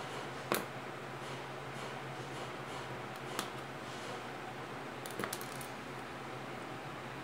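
A few small sharp clicks and taps from crochet tools being handled on a wooden table: one about half a second in, another a few seconds later, and a quick run of clicks just after five seconds as the hook is put down and the scissors are picked up to cut the yarn. A steady low hum sits underneath.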